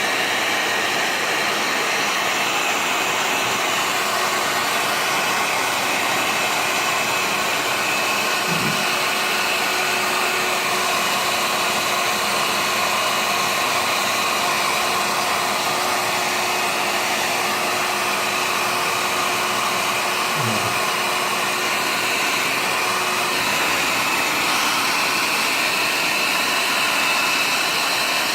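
Hair dryer running steadily with an even blowing rush, used to heat a smartphone so its glued glass can be pried open.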